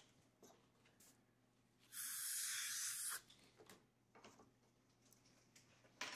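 Dental air syringe blowing a steady hiss of air for just over a second, drying the teeth after the bonding primer has been brushed on.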